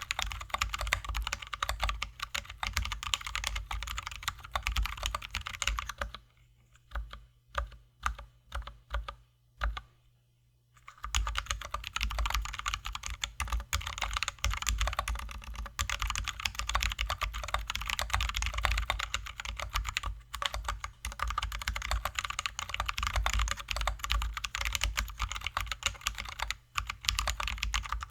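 Fast typing on a Drop ALT High-profile mechanical keyboard with lubed, filmed Zealios V2 67g tactile switches and XDA keycaps: a dense run of keystrokes. From about 6 to 11 s it slows to a few separate key presses, then fast typing resumes.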